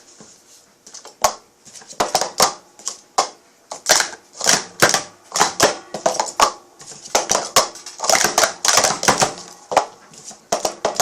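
Plastic Speed Stacks sport-stacking cups clacking against each other and the mat in quick irregular runs of sharp clicks.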